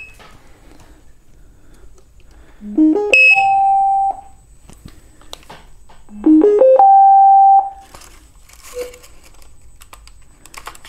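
Gotway electric unicycles powering on one after the other, each playing its electronic startup jingle: a quick run of rising notes ending on a held tone of about a second. The second jingle is louder than the first, which is what is being compared. A faint steady high whine continues after the first jingle, with light clicks of handling near the end.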